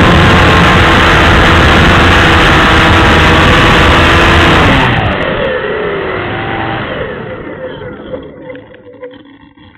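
Quadcopter's electric motors and propellers, picked up by its onboard camera: a loud, dense buzz. About five seconds in it drops sharply, and the motor whine slides up and down as it fades, the motors winding down as the quad falls toward the ground.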